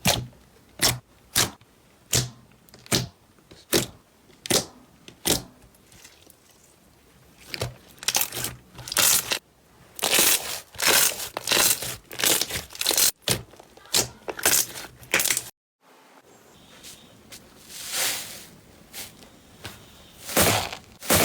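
Slime being pressed and worked by hand, first giving crisp clicks a little more than once a second, then longer crackling crunches. The sound drops out briefly about two-thirds through before the crackling resumes.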